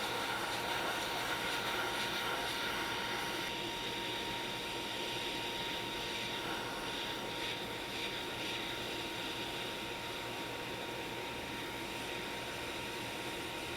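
Hot air rework station blowing a steady rush of air, with a faint steady whine, as it heats the iPhone baseband board during microsoldering.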